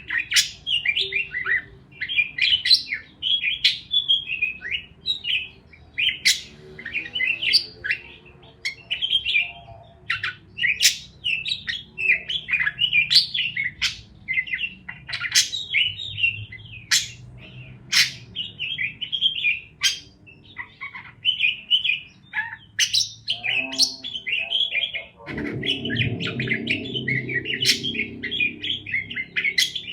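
Parakeets chirping and chattering continuously in quick, overlapping bursts with sharp clicky notes. A low rumble joins near the end.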